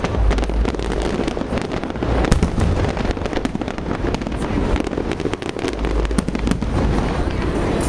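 Aerial fireworks display: a dense run of overlapping bangs and crackles with deep low booms, going on without a break.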